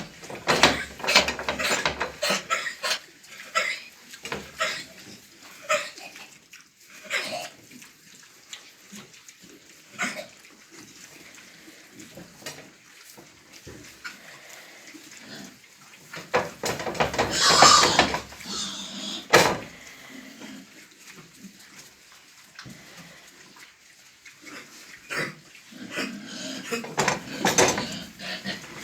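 Half-grown pigs in a pigsty coughing in short, harsh, irregular fits, mixed with grunting. The loudest bout comes about two-thirds of the way in and another run comes near the end. The coughing is the worry here, and its cause is unknown to the owner.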